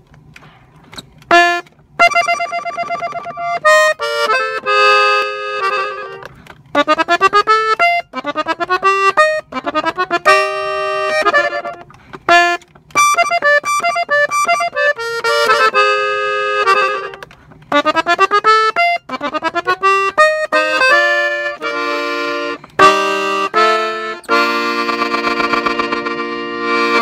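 Gabbanelli button accordion, tuned in F, played solo in the key of B-flat: phrases of quick melodic runs with short breaks, ending on a long held chord.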